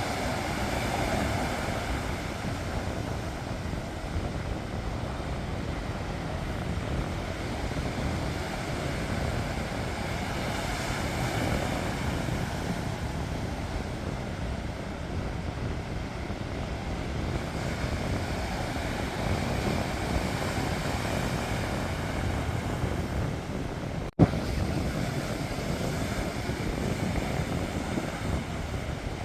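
Sea waves washing onto the shore in slow swells, with a deep rumbling noise under them. Late on, the sound cuts out for an instant and comes back with a sharp click.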